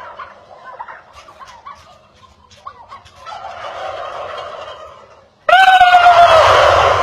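Gobbling: a loud, rattling gobble breaks out suddenly about five and a half seconds in and tails off, with fainter gobbling and clicks before it.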